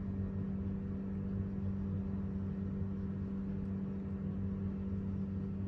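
Steady low hum with a constant deep tone, unchanging throughout: room background noise from a running appliance or electrical equipment.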